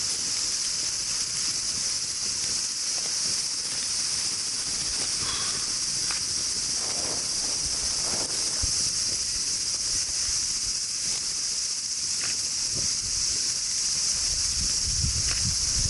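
A steady, high-pitched chorus of summer insects, with a few faint ticks and small knocks scattered through it.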